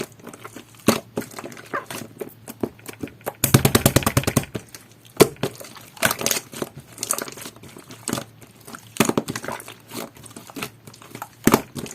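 Clear jelly-textured slime topped with rainbow clay being squished and pressed by hand, making sticky clicks and pops. About three and a half seconds in comes a quick run of crackling pops lasting about a second.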